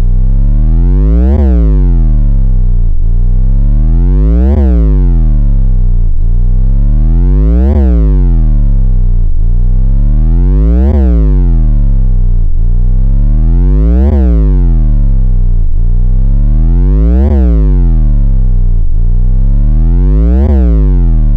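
Synthesized bass drop effect: a loud, deep synth bass tone sliding up in pitch and then dropping back down, over and over about every three seconds, with a faint click each time it bottoms out.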